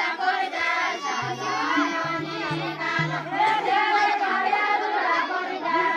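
A group of women singing a Deuda folk song together, several voices overlapping. A low steady hum sounds under the singing for about two seconds, starting about a second in.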